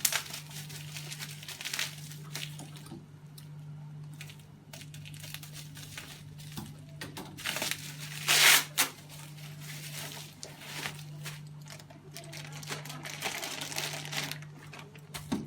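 Irregular handling noises of plastic parts and tubing being moved and rustled, loudest about eight and a half seconds in, over a steady low hum.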